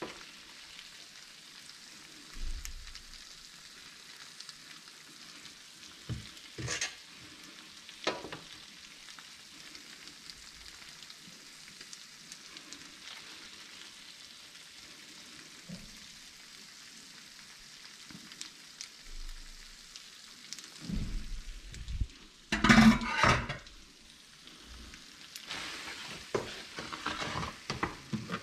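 Spaghetti with prawns in a creamy sauce sizzling softly in a frying pan while a wooden spatula and a metal pasta server stir, lift and scrape it. A few sharp knocks of the utensils against the pan early on the way through, and the busiest clattering and scraping about three quarters of the way through and again near the end.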